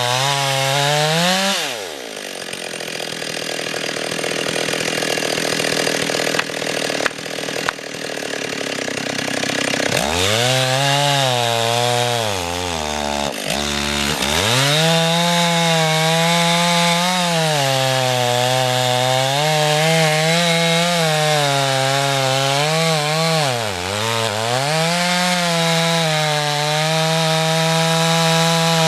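Two-stroke chainsaw running at high revs, its engine pitch falling away about a second and a half in. For several seconds after that there is a rushing noise with no engine note and a few sharp cracks. About ten seconds in the saw revs up again and runs at full speed, its pitch sagging briefly twice.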